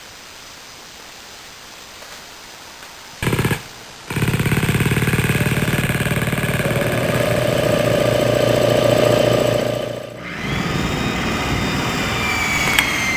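A power tool running in bursts with a fast, hammering rattle. Near the end it gives way to a high whine that falls slightly in pitch.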